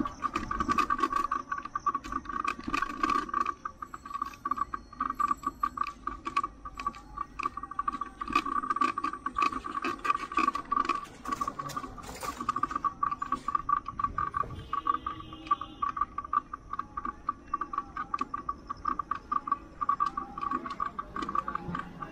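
Bicycle rattling and clicking while riding over a paved road: a steady fast rattle runs throughout, with many sharp clicks.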